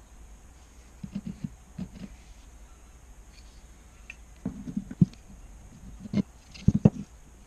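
Small pine toy parts being handled and knocked together: light wooden taps and clicks in short clusters, the loudest group near the end.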